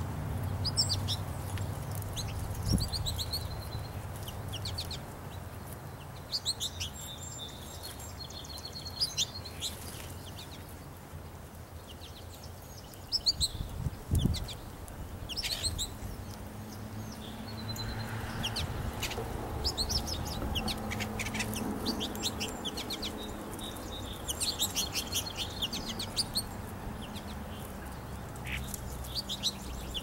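Small songbirds chirping and twittering in quick clusters of high calls, repeated every few seconds, over a low steady rumble. A single dull thump comes about halfway through.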